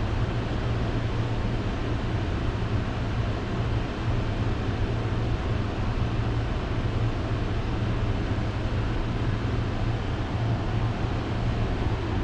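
Steady mechanical drone of boiler-room equipment running, a constant low hum under an even rushing noise.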